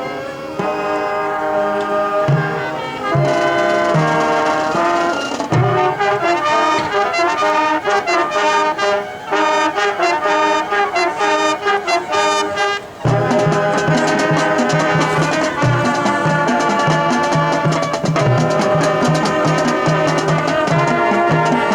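High school marching band playing its field show: brass (trumpets and trombones) with the drumline, shifting to a fuller brass passage with a steady low beat about 13 seconds in.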